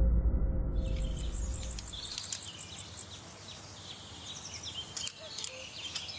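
Music fading out over the first two seconds as outdoor garden ambience comes in: many short bird chirps and insect calls over a steady background hiss, with a few light clicks near the end.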